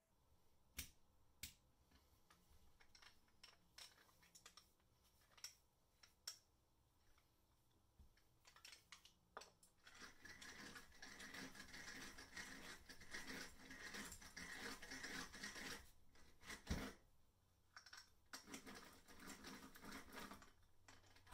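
Faint clicks from a restored Goodell Pratt hand crank drill being handled, then several seconds of steady whirring and rattling as it is cranked. A single sharp knock, then a few more seconds of cranking.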